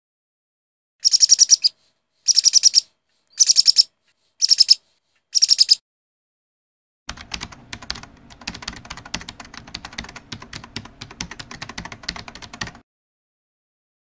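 Five short, shrill bursts of rapid parrot chatter about a second apart, then about six seconds of rapid clicking like fast typing on a keyboard, which stops suddenly near the end.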